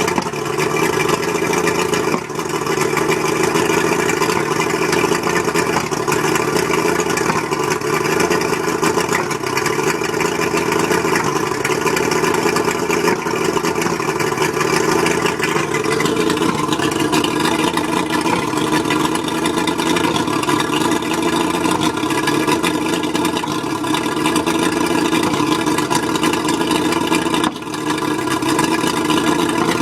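Mercury 135 outboard motor running rough with a misfire, which the owner thinks may come from the spark plugs. Its note shifts about halfway through, and the level dips briefly twice.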